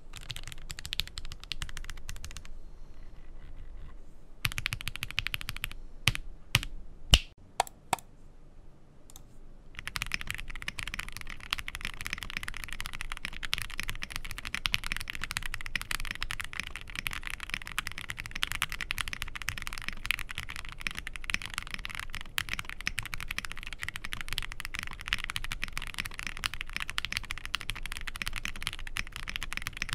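Fast typing on a Zoom65 V2 mechanical keyboard with lubed and filmed Gateron Oil King linear switches, a PC plate and PBT keycaps, and no foam inside: a steady stream of keystroke clacks. In the first ten seconds the typing stops twice for a couple of seconds, with a few separate louder keystrokes between the pauses.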